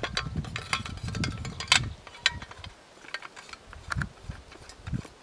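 Riverman Gunworks .308 MBR rifle being handled: a string of sharp metallic clicks and rattles, the loudest about two seconds in, over low rumbling handling noise that fades after about two seconds.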